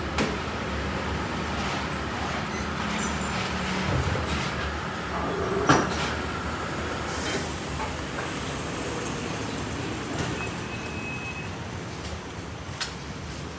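Tyre-shop workshop noise: scattered knocks and clanks of tyres, wheels and tools over a steady background rumble, with one sharp knock near the middle. A short hiss of compressed air from the tyre-inflating hose follows a little later.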